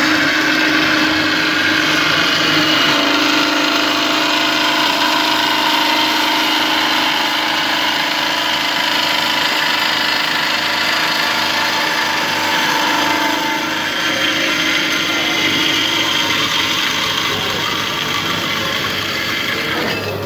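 Metal-cutting band saw machine running steadily: a dense mechanical noise with a steady hum over it, easing slightly in the last third.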